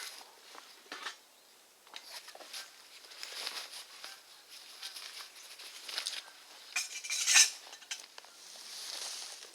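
Metal camp cookware and utensils clinking and clattering as they are handled, with the loudest clatter about seven seconds in.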